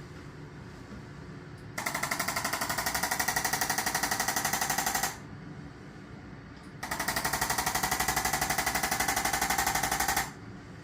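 Electric chiropractic adjusting instrument firing rapid, evenly spaced thrusts in two runs of about three and a half seconds each, with a short pause between.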